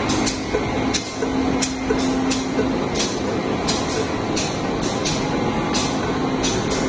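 Steady industrial din of a colour coating line for steel coil running: a continuous rumble with a steady hum. Short hissy bursts come about twice a second.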